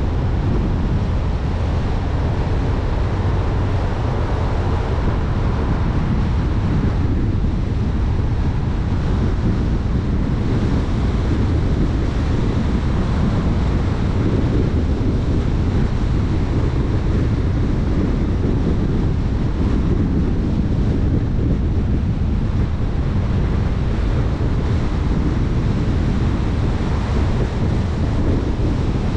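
Steady wind buffeting the microphone: a continuous low rumble under an even rushing noise, with no change in level.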